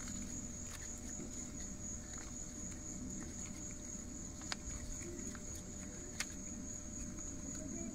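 Steady high-pitched insect chirring, like crickets, in the background. Two faint clicks come about four and a half and six seconds in, as a hex key works a drain plug on an outboard's lower unit.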